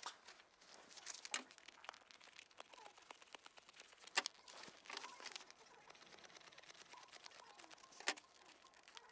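Old car-seat cover being peeled and snipped away from the foam it is glued to: faint crinkling and tearing, with a few sharp clicks, the loudest about four seconds in and near the end.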